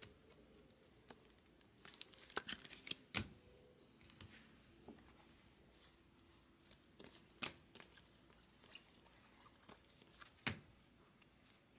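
Baseball trading cards being handled and flipped through by hand: faint, scattered flicks and slides of card stock, with a sharper snap about three seconds in.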